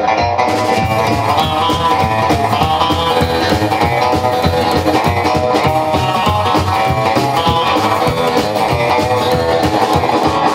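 Rockabilly band music: electric guitar leading over upright bass and drums, with a steady beat.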